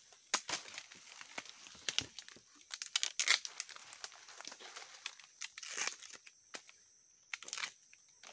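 Dry husk of a freshly pulled bamboo shoot being torn and stripped off by hand, with crackling of dry bamboo leaves: irregular crackles and a few longer tearing rips, about three and five seconds in and near the end.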